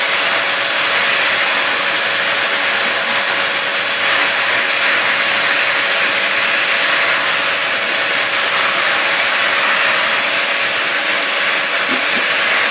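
Vacuum cleaner running steadily, its hose and brush nozzle drawn over a dog's coat to pick up shed hair. A constant rush of air with a thin high whine over it.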